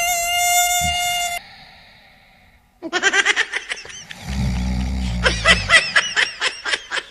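A steady, high mosquito buzz that cuts off about a second and a half in. It is followed by a run of quick, high-pitched snickering laughter, with a low snore underneath from about four to six seconds in.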